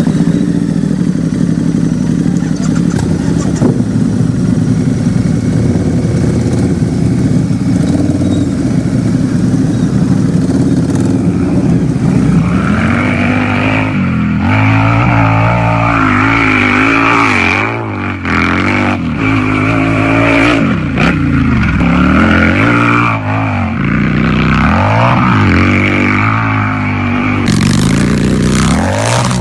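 Harley-Davidson motorcycle's V-twin engine idling steadily, then from about halfway being revved again and again, its pitch rising and falling with each blip of the throttle, before settling back to a steadier run near the end.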